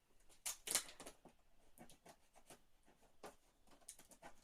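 Scissors cutting into a cardboard box's packing: a string of sharp, irregular snips and crackles, the loudest two about half a second in.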